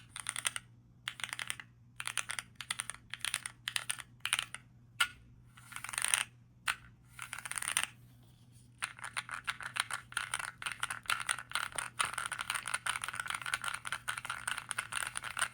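Mechanical key switches (Epomaker Zebra) on a small keyboard fidget pad being pressed: short bursts of keystrokes for about eight seconds, a brief pause, then fast continuous typing.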